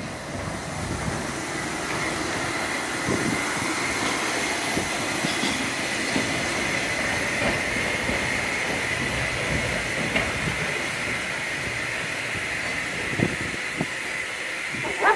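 Narrow-gauge steam locomotive and its carriages running slowly out of a station: a steady noise of wheels on rail and steam hiss, with a few short knocks and clanks, the sharpest near the end.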